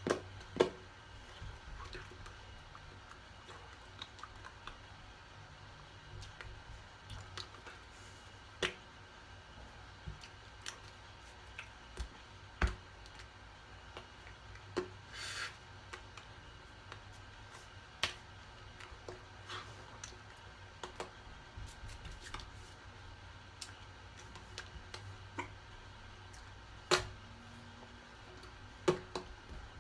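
Irregular soft taps and slaps of hands meeting each other and the chest while signing, over a low steady room hum.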